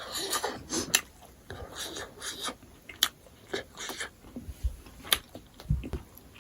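A person eating and chewing close to the microphone: wet mouth sounds and short rasping chews, with a few sharp clicks at irregular intervals.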